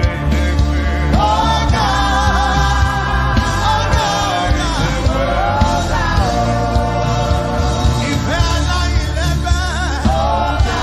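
Gospel worship music: a voice singing a wavering, sustained melody over a steady low accompaniment with a regular pulse.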